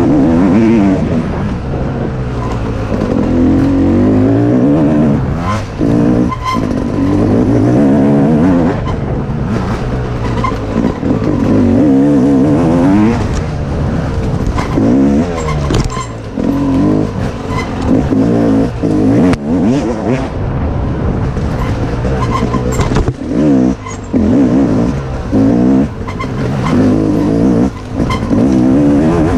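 Dirt bike engine revving up and down as it is ridden hard along a rough trail. Its pitch climbs and falls over and over, broken by brief drops where the throttle is shut.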